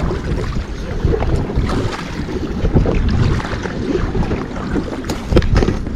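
Wind buffeting the microphone on a kayak, with water sounds around the hull and a few sharp knocks about five seconds in.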